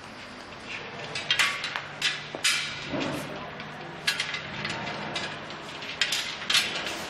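Irregular sharp clicks and metallic clinks of metal frame parts and fasteners being handled and fitted together while a solar water heater rack is assembled, over a faint steady low hum.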